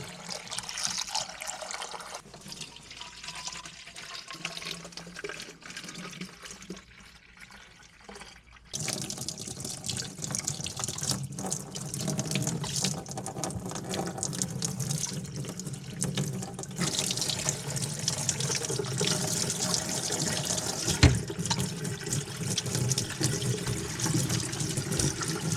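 Water running steadily from a tap, turned on suddenly about nine seconds in: hot water being run to melt the ice out of frozen animal water containers. A single sharp knock sounds near the end.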